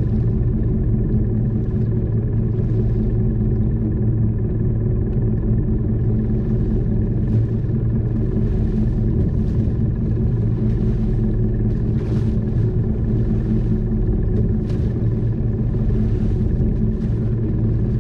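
A fishing boat's engine running at a steady pitch, a constant low hum, with faint brief swishes over it.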